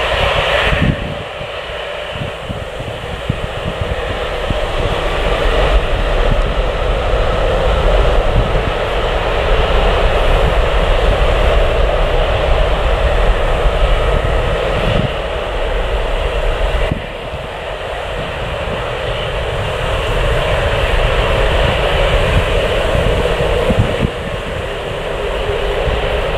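Jet airliner engines running as aircraft move on or near the runway: a steady, loud rushing noise with a rumble underneath. The level drops abruptly about a second in, again about 17 seconds in, and shifts again near 24 seconds.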